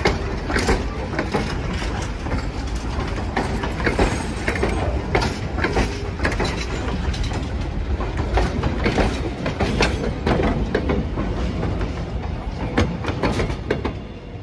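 Passenger train rolling past close by: a steady low rumble with repeated sharp clicks of the wheels over rail joints. The sound drops away near the end.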